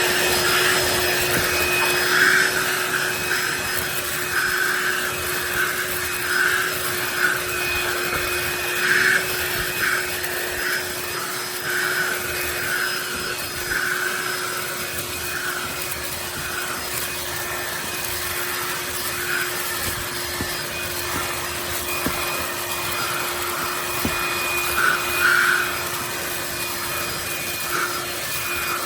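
DEWALT DCV501HB 20V cordless handheld vacuum running steadily with a constant motor whine. An uneven scratchy rustle runs over it as it picks up a mess from car carpet.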